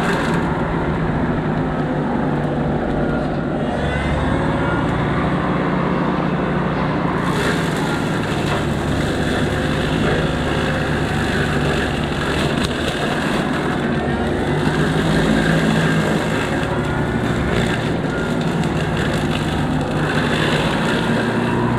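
Small excavator's engine running steadily under load, driving a 42-inch brush-cutter head with bush hog blades through heavy brush.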